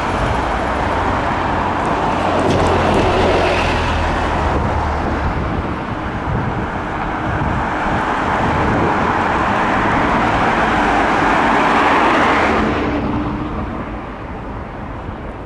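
Road traffic noise with a bus engine running close by: a steady rushing noise with a low hum, swelling twice, that cuts to a quieter low rumble about three seconds before the end.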